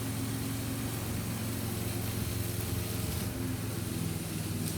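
Steady low hum of a running motor, even and unchanging, with a few steady tones above its low drone.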